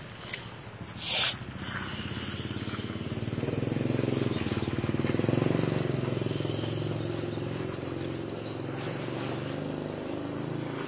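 An engine running steadily, swelling from about three seconds in and then holding a little lower. A sharp tick about a second in is the loudest sound.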